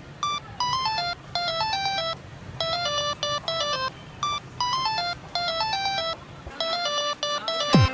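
Background chiptune music: a short, bright electronic melody of stepping beeps repeating about once a second, with a low backing layer that drops out near the end.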